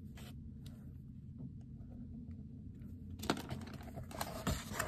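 Eraser pencil rubbing lightly on sketchbook paper in faint short strokes, then from about three seconds in the paper page being handled, with louder crinkling and rustling.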